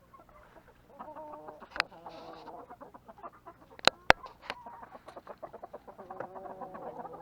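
A flock of chickens clucking, with three sharp knocks, the last two close together about four seconds in.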